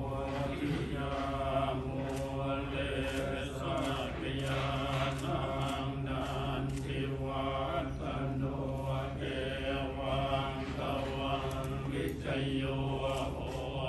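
Buddhist monks chanting together on a low, steady pitch.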